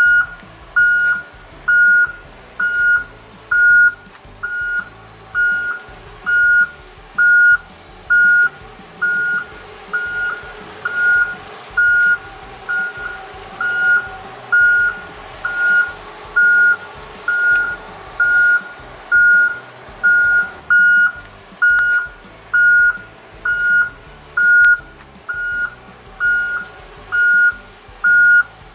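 Truck reversing alarm beeping steadily, about one beep a second, over a faint engine hum.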